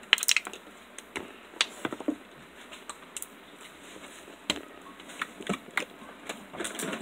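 Hand squeezing and kneading soft marshmallow slime, making irregular wet clicks and pops as trapped air bursts, with a quick run of them right at the start.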